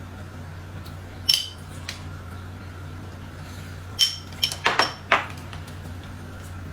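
Dishes and utensils clinking: a single ringing clink about a second in, then a quick run of five clinks and knocks about four seconds in. A steady low hum sits underneath.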